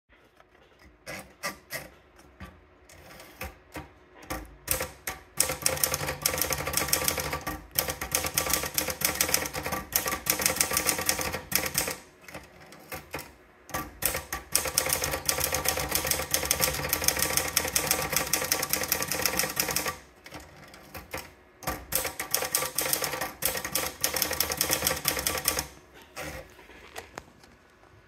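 Olivetti Lettera 35 portable manual typewriter. First a few separate clicks as the paper is wound into the platen, then fast typing in three runs of keystrokes with short breaks between them, one run for each typed line.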